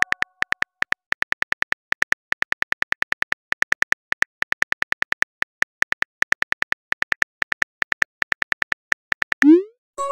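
Simulated phone keyboard key clicks, a quick even run of about six taps a second as a text message is typed. Near the end comes a short rising whoosh, the message-sent sound.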